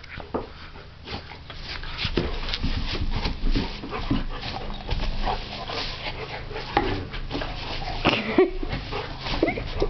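A puppy and an older dog play-wrestling: scuffling and the rustle of puppy pads being dragged, with short whimpering cries, a few of them near the end.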